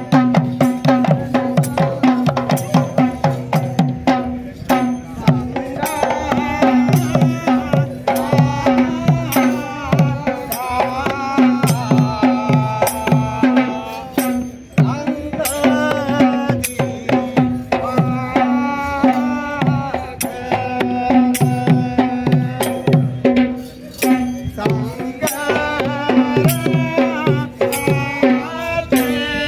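Music: quick hand-drum strokes over a steady held drone, with a wavering melody line above them.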